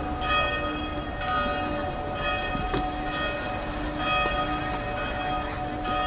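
Church bells ringing, with a fresh stroke about once a second and each stroke's ringing carrying on under the next, over a steady low background noise.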